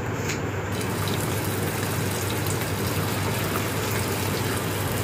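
Battered chicken pieces deep-frying in hot rice bran oil in a kadai: a steady sizzling hiss of bubbling oil. The sizzle grows fuller a little under a second in as pieces go into the oil, then holds steady.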